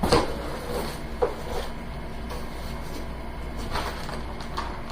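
Packaging being handled during an unboxing: a loud thump right at the start, a sharper knock about a second in, then soft rustling and small clicks.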